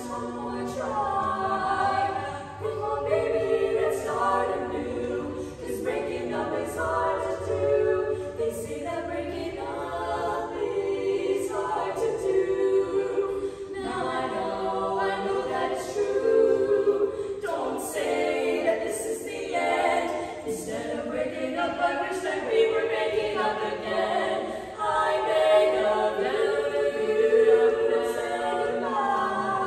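A female vocal quartet singing a cappella in four-part harmony, with unaccompanied voices moving through phrases.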